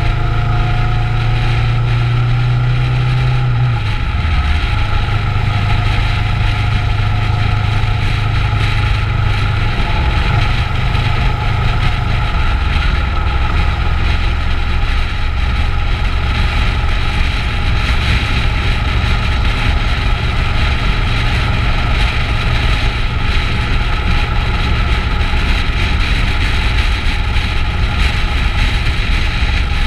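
Kawasaki Ninja 650's parallel-twin engine running under way on a test ride, with road and wind noise. The engine note drops about four seconds in and shifts again around ten to twelve seconds in.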